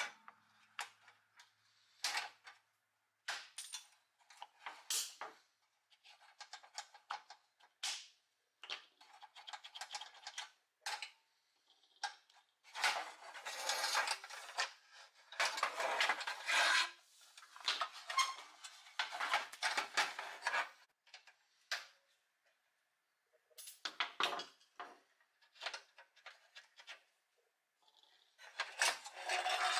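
Metal clinks, scrapes and rattles of a pressed-steel Tonka toy truck being taken apart by hand: a thin tool prying at a wheel hub, and the steel body and axle knocked and shifted about. The noises come in short irregular bursts, with a longer run of scraping and rattling in the middle.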